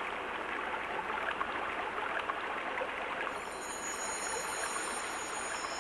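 Steady rushing noise, like flowing water, with faint high thin tones coming in about halfway through.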